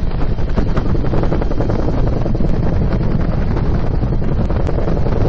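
Steady rush of wind through the open cabin door of a UH-1 Huey helicopter in flight, buffeting the microphone, over the helicopter's rotor and engine noise.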